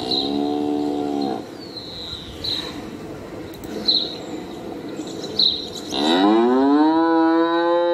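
Cattle mooing twice: a short moo lasting about a second and a half at the start, then a longer moo from about six seconds in that rises in pitch and then holds steady.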